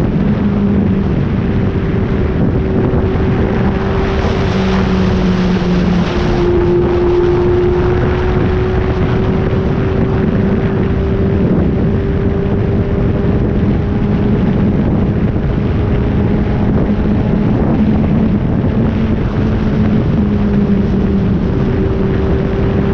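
Four-cylinder Kawasaki ZX-8R sport bike engine running at a steady cruise, half buried under heavy wind noise on the microphone; its pitch dips slightly about six seconds in, then slowly climbs.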